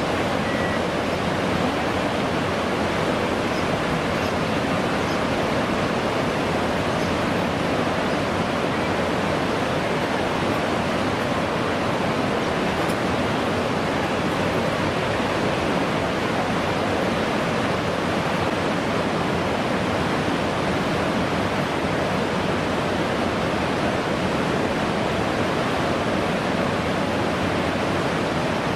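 Whitewater of a canoe slalom course rushing in a steady, unbroken roar.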